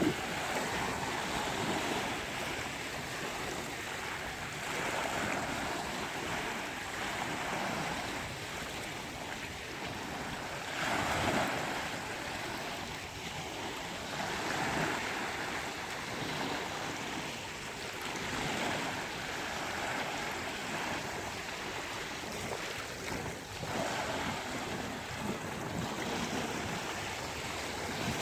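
Sea waves breaking and washing on a beach: a steady rush of surf that swells and eases every few seconds, with its loudest surge about eleven seconds in.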